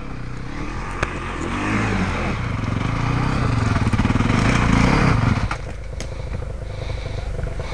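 Dirt bike engine revving in repeated surges under load on a steep rocky climb, growing louder until about five seconds in, then dropping away.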